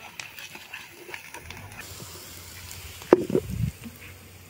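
Chopped onions frying in oil in a pan over a wood fire, with a faint sizzle and small ticks. About three seconds in there is a sharp knock and clatter.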